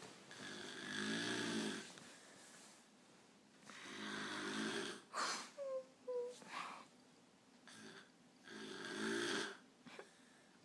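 An elderly woman snoring very loudly in her sleep: three long, rattling snoring breaths about four seconds apart, with two short squeaky notes after the second one.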